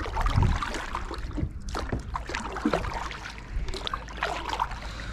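Kayak paddle strokes dipping and pulling through calm water, with splashing and water trickling off the blades, over a low rumble.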